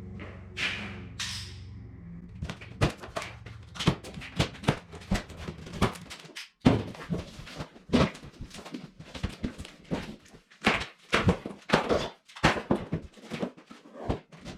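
Unpacking the shipping box of a Sur Ron electric dirt bike: two short rasping noises about a second in, then a long run of irregular sharp knocks and clunks as packaging and parts are handled.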